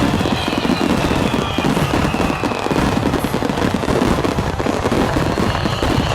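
Rapid, continuous barrage of fireworks bursts and crackles with no pauses, with music playing underneath.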